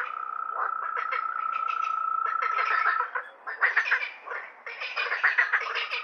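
Frogs calling: bouts of rapid, rattling croaks about a second long, repeated, over a steady high tone that stops about halfway through.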